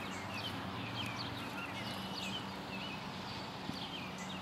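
Small birds chirping, short repeated chirps scattered through the outdoor ambience, over a steady low hum.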